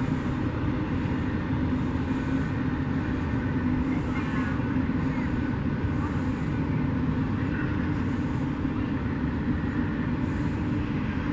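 Union Pacific train rolling past, a steady continuous rumble.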